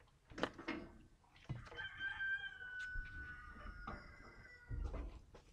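A rooster crowing once, one long call lasting about two seconds, with a few clicks and knocks around it; the loudest knock comes near the end.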